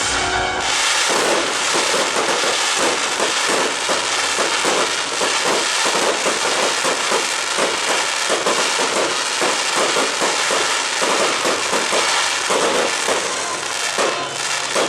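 Dense fireworks barrage: many overlapping bangs fired in rapid succession, without a break for most of the time, easing off shortly before the end.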